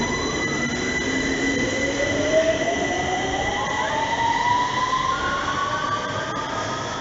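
London Underground 2009 Stock train pulling out of the platform. Its traction motors whine in a pitch that rises steadily as it accelerates, over the running noise of wheels on rail.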